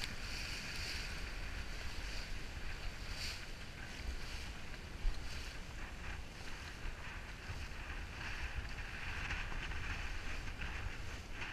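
Wind buffeting the microphone and water hissing and splashing as a small boat moves across the sea, with a low rumble throughout and one brief knock about five seconds in.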